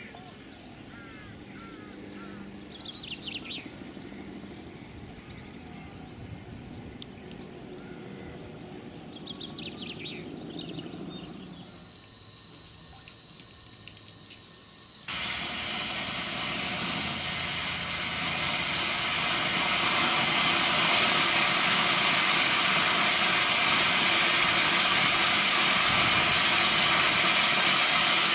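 Steam hissing steadily from a small narrow-gauge steam locomotive standing in its shed. The hiss starts suddenly about halfway through and grows a little louder. Before it, a few bird calls over quiet outdoor ambience.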